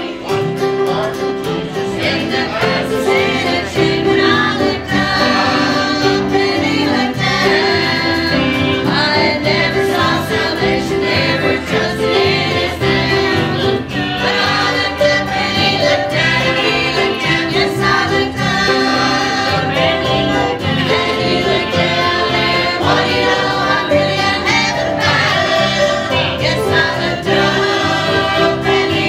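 Small mixed church choir of men and women singing a gospel hymn together over a steady, rhythmic instrumental accompaniment.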